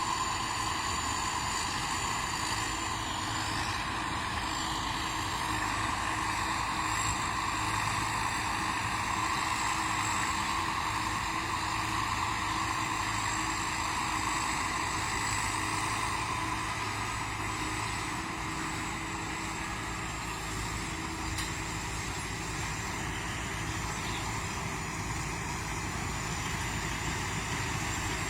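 Combine harvester running steadily, its engine and machinery making an even drone with a constant high whine above it.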